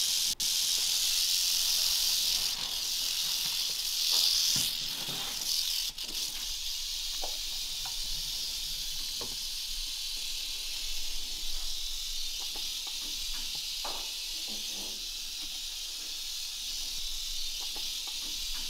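Rattlesnake rattling: a steady, dry, high buzz that carries on without a break, loudest over the first five seconds and a little quieter after. A few faint taps and knocks sound beneath it.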